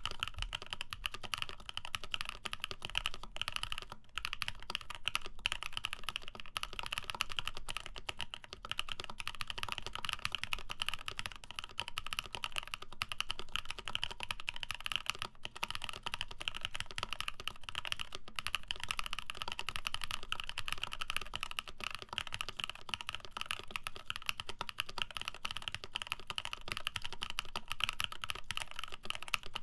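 Steady, fast typing on a J-01 custom mechanical keyboard with lubed Prevail Epsilon switches, an FR4 plate and GMK keycaps: a dense, unbroken run of key clicks.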